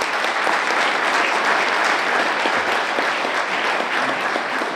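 Audience applauding: many hands clapping in a dense, steady round of applause.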